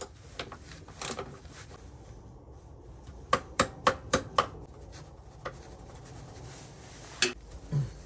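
Hand tools clicking and clinking against the bolts of a Yamaha Grand Axis scooter's drive-belt case cover as the bolts are undone: a few scattered clicks, a quick run of about six sharp clicks around the middle, and a couple more near the end.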